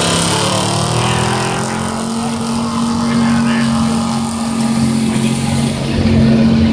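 International truck's engine running at high, steady revs under heavy load as it drags a weight-transfer sled down a pulling track.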